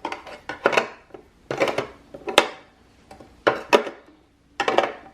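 Small skincare bottles and jars being set down and shifted in drawer organizer bins, in several quick clusters of clacks and clinks with short pauses between.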